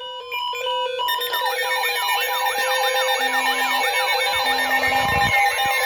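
Layered electronic emergency alert tones. A steady high tone is joined about a second in by a dense mix of steady tones, a rapidly repeating rising-and-falling siren-like warble and short low beeps.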